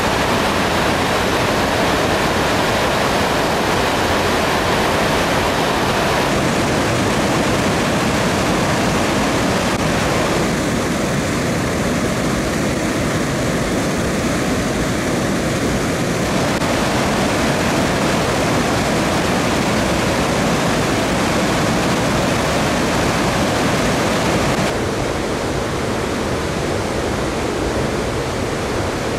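Floodwater from Ladybower Reservoir's bellmouth spillway (the 'plughole') pouring out of its outlet tunnel into a stone channel: a loud, steady rush of turbulent water. About 25 seconds in it drops a little and sounds duller.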